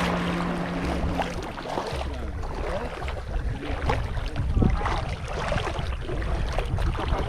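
Water splashing and rushing, with a low rumble underneath, typical of a small boat under way.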